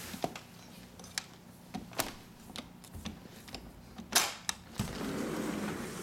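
Sliding patio door being worked by its handle: a string of clicks and knocks from the latch and frame, the loudest about four seconds in, then a longer scraping rumble near the end as the door slides along its track.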